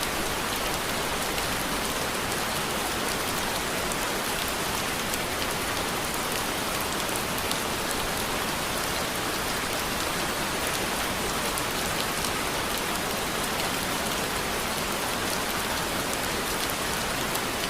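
Steady rain falling, an even hiss of many drops with faint scattered ticks of individual drops striking a surface.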